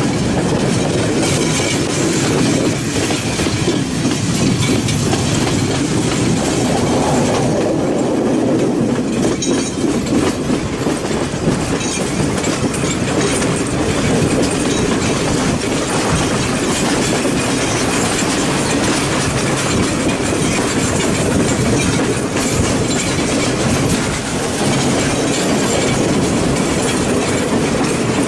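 Sri Lankan passenger train running steadily along the track, heard from aboard a carriage.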